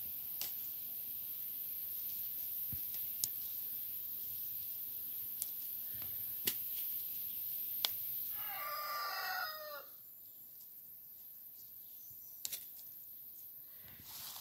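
A rooster crows once, a wavering call of just over a second about eight and a half seconds in, over a steady high hiss and a few sharp ticks.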